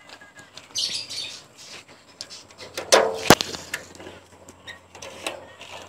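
Metal clinks and knocks from the pump and lid of a metal knapsack sprayer being handled over its tank, with one sharp click a little over three seconds in, the loudest sound. Birds chirp briefly in the background about a second in.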